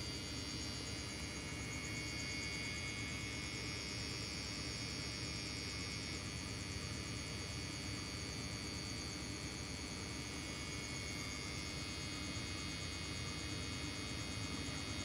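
Steady outdoor night ambience: insects trilling in thin, high, unbroken tones over an even low rumble.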